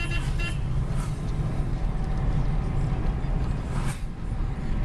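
Steady low rumble of a car's engine and tyres on the road, heard from inside the moving car. A short high-pitched beep sounds at the very start, and there is a faint thump near the end.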